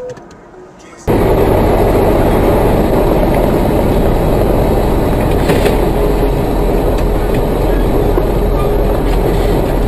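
Steady, loud rushing road and wind noise on a dashcam microphone, cutting in abruptly about a second in, with a faint knock near the middle.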